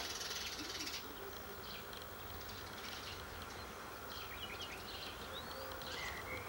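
Outdoor field ambience: a steady insect buzz, with a few short bird chirps from about four seconds in.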